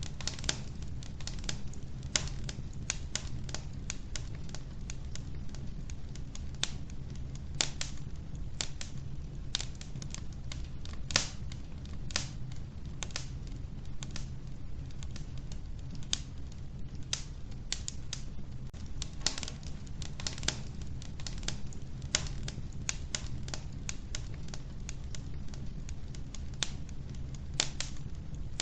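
Wood fire burning in a wood stove: irregular sharp crackles and pops from the burning logs, several a second, some louder than others, over a steady low rumble of the flames.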